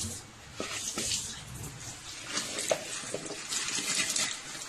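Water splashing in a bowl as chopped tapioca pieces are washed by hand, in uneven bursts with a few small knocks of the pieces against the bowl.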